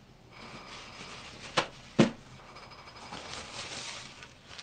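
Hands working craft materials on a desk: a steady rubbing, scraping noise with two sharp taps, about a second and a half and two seconds in.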